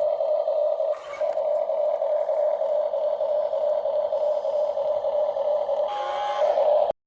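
A small electric motor running with a steady mid-pitched drone. Near the end it briefly changes, then cuts off suddenly.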